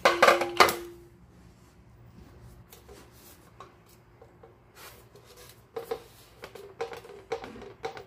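Stock GSX-R1000 metal muffler clunking onto a glass digital bathroom scale, the loudest knock at the start followed by a brief metallic ring. After a quiet stretch comes a run of sharp knocks and taps as the muffler is shifted and steadied on the scale.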